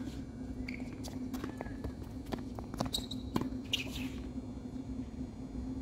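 Scattered light knocks of a tennis ball bouncing on a hard court, with shoe sounds, over a steady low hum.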